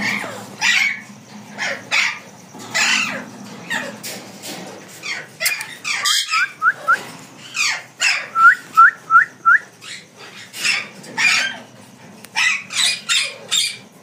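Alexandrine parakeet giving repeated harsh screeches, roughly one a second, with two quick runs of short rising chirps midway through.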